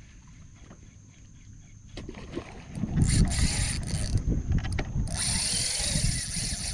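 A fishing reel whirring in two bursts, about three and five seconds in, with a fish on the line.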